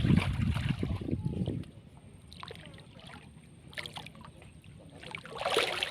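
Water sloshing and splashing, heaviest for the first second and a half, then faint scattered drips and small splashes, with a louder splash near the end.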